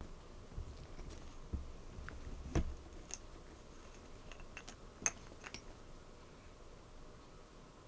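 Cats moving about and playing with a silver vine stick on the floor: scattered light clicks and taps, with a duller knock about two and a half seconds in and a sharper click about five seconds in.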